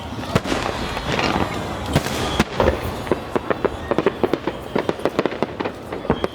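Aerial fireworks going off: a few loud bangs, then a dense run of rapid crackling reports that stops just before the end.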